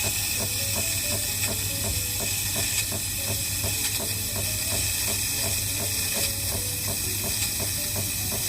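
Espresso machine running with a steady hiss of steam over a low hum.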